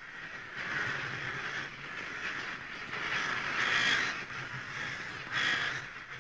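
A flock of birds calling together, a dense chorus of overlapping calls that swells and fades several times.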